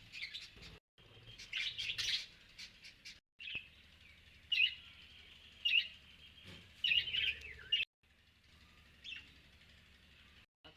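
Parrots chirping in short, high calls, the loudest a little under halfway through, with a few sudden breaks of silence between bursts.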